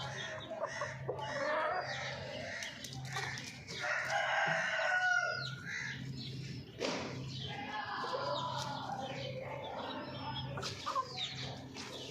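Chickens clucking and calling, with a drawn-out rooster crow, the loudest call, about four seconds in.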